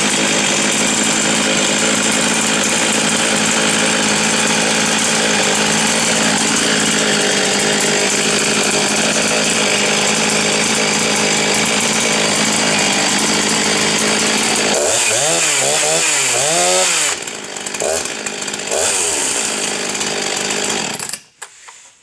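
Two-stroke 61 cc Husqvarna 261 chainsaw running flat out at a steady high pitch, then revved up and down about three times and dropping back to a lower, uneven run. The sound cuts off abruptly about a second before the end.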